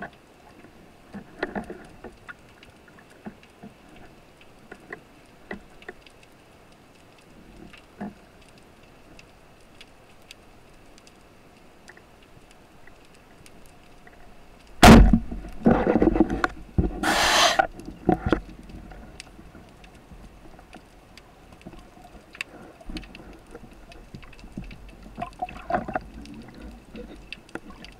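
Underwater spearfishing audio: faint scattered crackling clicks, then about halfway a sudden loud hit followed by about three seconds of rushing, breathy noise in pulses. The clicks return afterwards.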